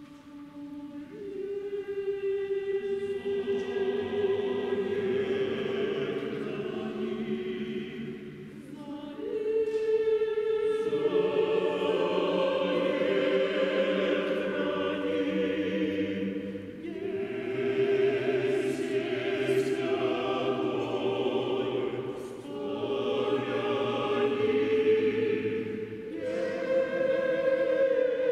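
Mixed choir of men's and women's voices singing in long phrases, starting softly and swelling, with short breaths between phrases every five to eight seconds.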